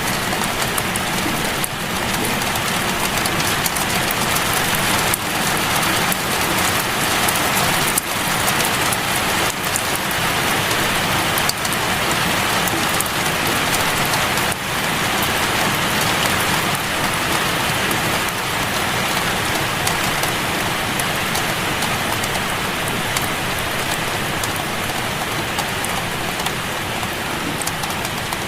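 Steady rain falling, a dense even hiss with scattered individual drop impacts.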